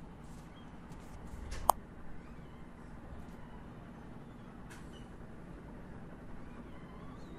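A single sharp computer-mouse click about a second and a half in, over faint steady room noise, with a much fainter click near five seconds in.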